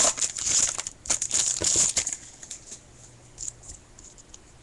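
A trading-card pack wrapper being torn open and crinkled, loud and crackly for about the first two seconds. After that come softer rustles and light clicks as the cards are handled.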